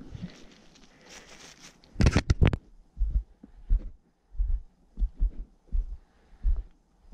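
Footsteps walking on a stony dirt track, heard as steady low thuds about three every two seconds through a body-worn camera. Before the walking there is a soft rustling, then a quick cluster of loud clacks about two seconds in.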